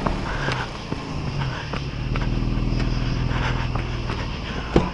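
Jeep engine running steadily under load as it drives through a muddy trail rut, with scattered knocks and thumps from the vehicle.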